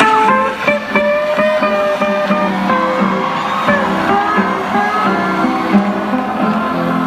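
Live rock band's guitar playing a song intro: sustained single notes with pitch bends over a steady low note, through a loud concert PA.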